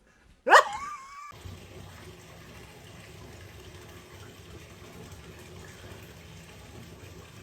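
A short, loud cry rising in pitch about half a second in, then water running steadily from a tap.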